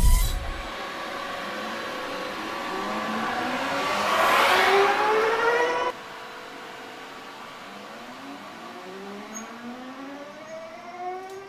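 Audi RS Q e-tron E2 rally car's electric drive motors whining as it accelerates: several rising tones climbing together, loudest with a rush of noise about four to five seconds in. The sound cuts off abruptly at about six seconds, and a second, quieter rising whine follows.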